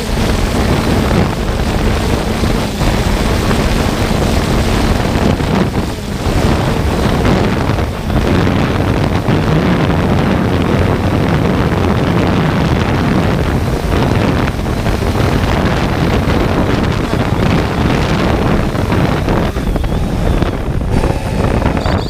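Strong, gusty wind buffeting the microphone in a loud, continuous rumble, with a faint steady hum underneath for the first few seconds.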